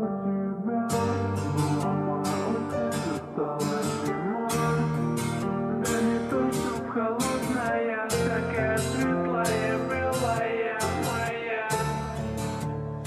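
Music: the intro of a slowed-down song. A beat of crisp hits comes in about a second in over sustained notes.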